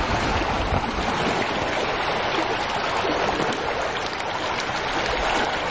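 Steady rushing noise of wind buffeting the microphone, with small lake waves lapping on the shore rocks.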